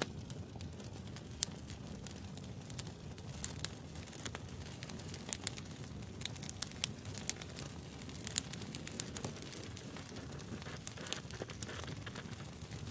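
Wood fire burning with a low steady rumble and irregular sharp crackles and pops, several a second.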